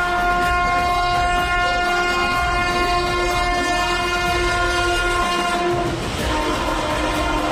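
WAP-7 electric locomotive's air horn sounding one long, loud chord of several pitches. About six seconds in, the horn's pitch drops and the rushing and clatter of the passing train rise.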